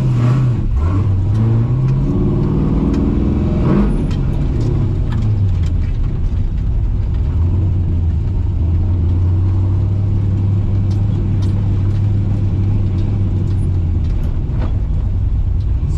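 A 1968 Pontiac Firebird drag car's engine, heard from the car. It revs up and eases off in the first few seconds, then runs at a steady low speed.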